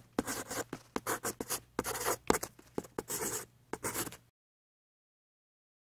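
Pen-on-paper writing sound effect: quick, irregular scratchy strokes with a faint low hum under them. It cuts off abruptly about four seconds in, leaving dead silence.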